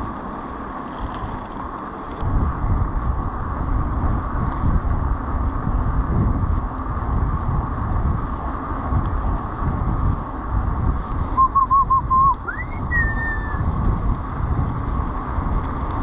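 Wind rushing and buffeting against the microphone while cycling, a steady noise with gusts. About twelve seconds in, a short warbling whistle sweeps up in pitch.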